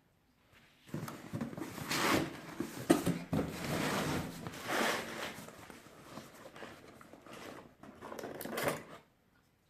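Packaging being handled during unboxing: irregular rustling and scraping that starts about a second in, with a sharp knock about three seconds in.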